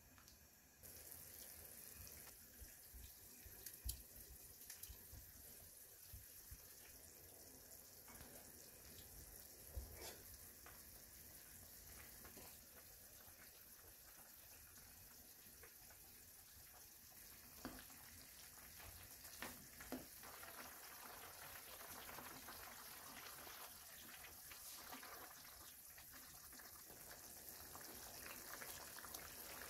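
Faint, steady sizzling hiss of jjamppong broth simmering in a frying pan, with a few light knocks of a spoon against the pan.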